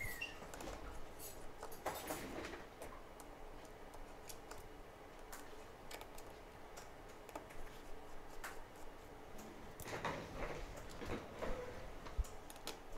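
Scattered light clicks and ticks of small metal tools on an opened iPhone 6S: a precision screwdriver and tweezers working on its tiny screws and shield parts, with a few soft scrapes of handling.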